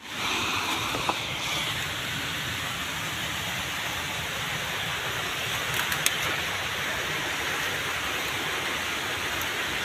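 Steady rushing noise of flowing stream water, with a couple of faint clicks.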